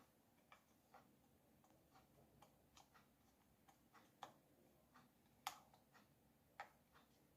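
Faint, irregular clicks and light taps of small hard parts and tools being handled, about a dozen, with the sharpest two near the end.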